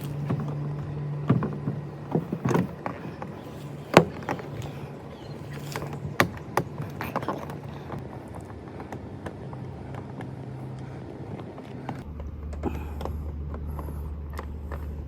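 Plastic trim clips and door panel of a 2016 Honda Accord being pried loose with a screwdriver: a series of sharp clicks and knocks, the loudest about four seconds in, over a steady low hum.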